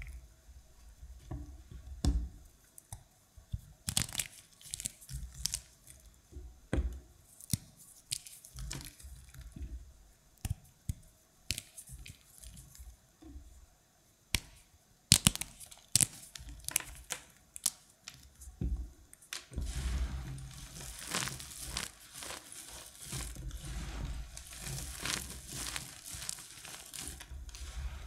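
Crumbled dry soap pieces in starch powder crunching and crackling as hands squeeze and rub them. The crackles are scattered at first, then become a dense, continuous crunching about two-thirds of the way through.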